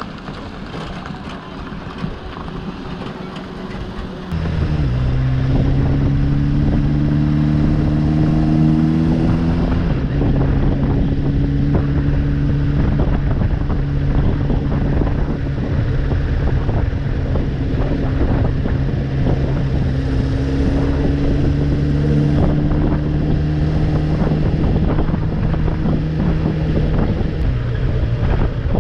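Kawasaki GPZ900R's inline-four engine, under way. About four seconds in it suddenly grows loud and its pitch climbs for several seconds, drops back about ten seconds in, then holds a long steady note that eases off near the end.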